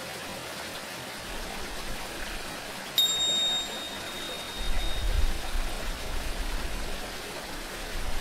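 Tingsha cymbals struck once about three seconds in, giving a single high, bright ring that fades over about a second, over a steady wash of flowing water.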